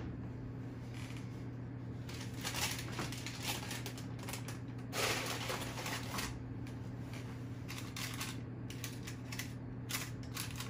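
Parchment paper crinkling and rustling as a loaf on it is settled into an enamelled cast-iron Dutch oven and the paper is tucked down, in irregular rustles that are loudest about five seconds in. A steady low hum runs underneath.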